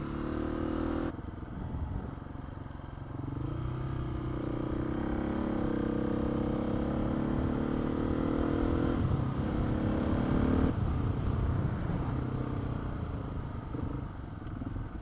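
Motorcycle engine running under way, its note climbing steadily for several seconds as it gathers speed, over a steady rumble of wind and road noise.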